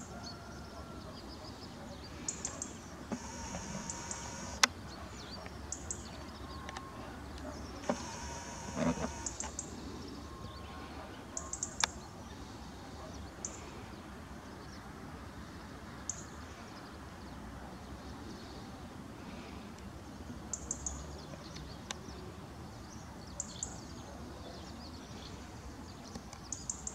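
Small birds giving short, high chirps every second or few over a steady low outdoor background, with a couple of sharp clicks.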